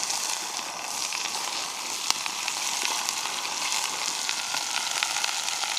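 Cubed stew beef searing in hot oil in a cook pot, a steady sizzle with scattered sharp pops.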